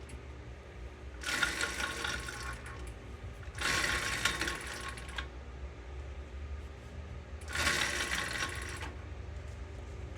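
Motorized bicycle engine being turned over in three short bursts of rapid mechanical chatter, each about a second and a half, without catching: the engine won't start.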